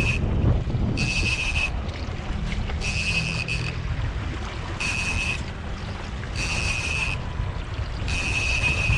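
Boat running with water and wind noise, and a short high-pitched electronic beep repeating about every two seconds.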